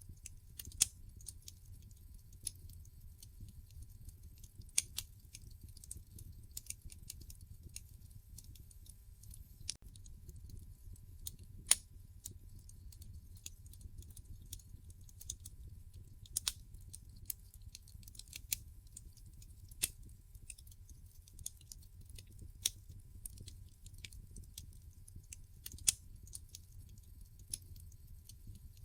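Wood fire burning in a fireplace: a low steady rumble of the flames with irregular sharp crackles and pops from the logs, a dozen or so louder snaps scattered throughout.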